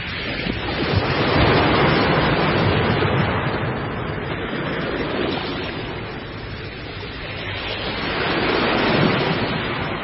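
Ocean surf: heavy waves breaking and rushing, swelling loudest about a second in and again near the end.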